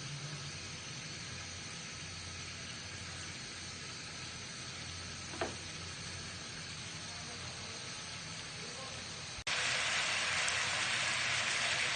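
Tandoori-marinated chicken pieces frying in a pan, a steady low sizzle with a single short tap near the middle. About nine and a half seconds in, it cuts abruptly to a much louder, brighter sizzle.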